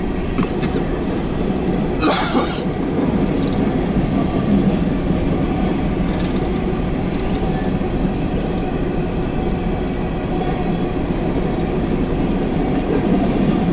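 Empty coal train's cars rolling past, a steady rumble and rattle of wheels on the rails, with a brief sharper sound about two seconds in.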